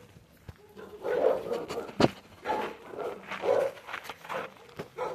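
Dogs barking in a run of short barks starting about a second in, with a single sharp knock about two seconds in.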